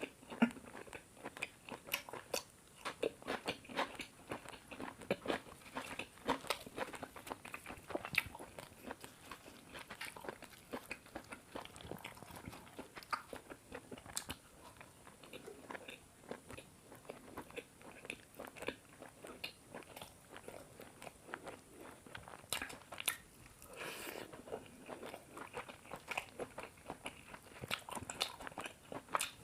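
Close-miked chewing and biting while eating chicken curry with paratha, with many short, irregular mouth clicks throughout.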